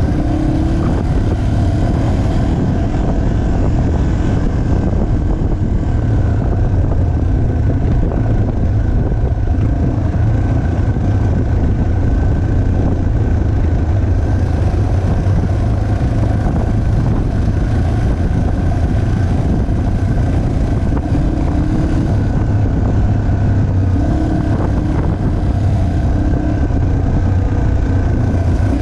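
Yamaha TTR 230's single-cylinder four-stroke engine running at a fairly steady throttle while the bike is ridden along a dirt trail, its pitch shifting only slightly. Heard close up from the rider's helmet camera.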